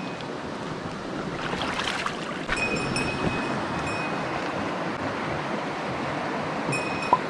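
Mountain stream rushing steadily over rocks. A few short, high, thin tones come and go, and one sharp click sounds near the end.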